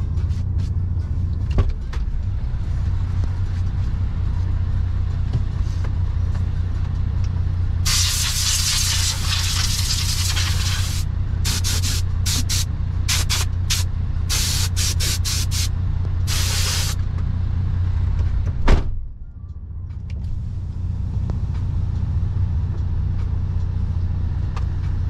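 Truck's diesel engine idling as a steady low hum inside the cab. About a third of the way in comes a long hiss of compressed air, followed by several short hisses, then a single thump.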